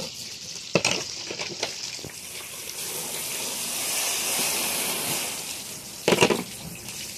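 Garden hose spraying water onto the fish-cleaning table, rinsing fish guts off; the hiss swells in the middle and fades. A sharp knock comes about a second in and a louder one about six seconds in.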